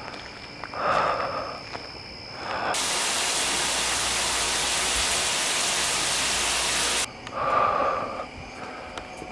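Heavy, raspy breathing close to the microphone, then a steady hiss of a shower running that starts and cuts off abruptly after about four seconds, after which the slow breathing returns.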